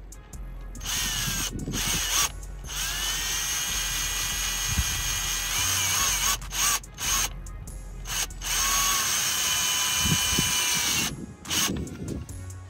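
Cordless drill driving screws into a plastic car splitter piece, in several runs of a few seconds each with short pauses between. Each run has a high motor whine that rises as the drill spins up.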